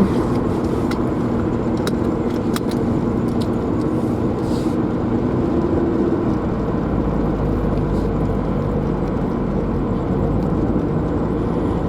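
Car engine and tyre noise heard from inside the cabin while driving with the window rolled down: a steady hum, with a few light clicks in the first few seconds and a deeper rumble from about halfway through.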